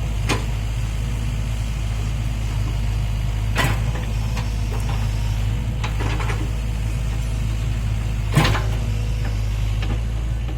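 Heavy construction machine's diesel engine running steadily with a low rumble, broken by four sharp metallic clanks about two to three seconds apart, the loudest one near the end.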